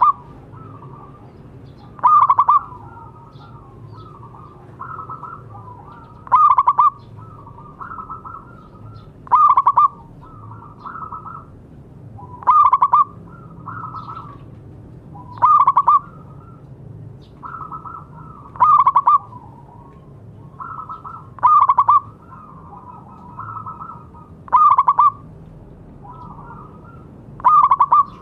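Zebra doves (perkutut) cooing: one loud, short call about every three seconds, with softer cooing in between.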